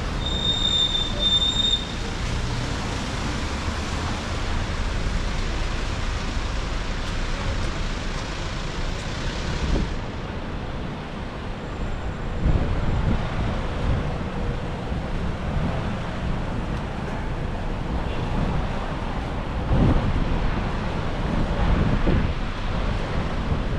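Storm wind and rain, a steady rushing noise with gusts rumbling on the microphone. The hiss thins about ten seconds in.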